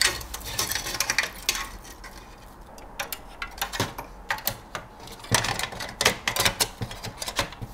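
Irregular clicks, taps and light metallic rattles as a sheet-metal drive bracket holding a 3.5-inch hard drive is handled and set onto a steel mini-ITX computer case, with its cables being pushed into place.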